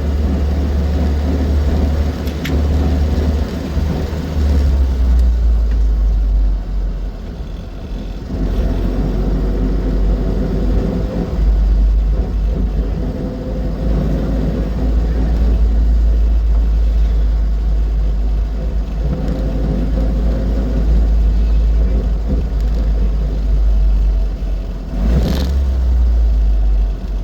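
Austin 7 Ruby on the move: its four-cylinder side-valve engine running under load with road noise, a deep rumble dominating and rising and falling every few seconds. A brief rushing sound about 25 seconds in.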